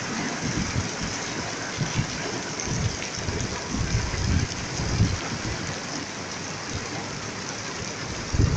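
Heavy rain pouring down on a street, a steady dense hiss, with irregular low rumbling gusts of wind.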